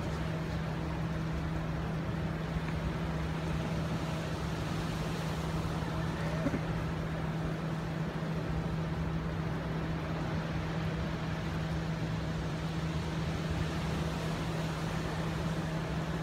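A steady mechanical hum at one constant low pitch over a rumble, unchanging throughout.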